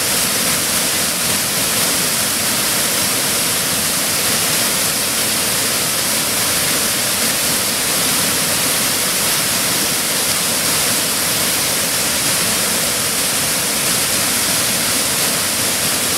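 Waterfall: whitewater pouring over a rock ledge and churning in the pool below, a loud, steady rush of water.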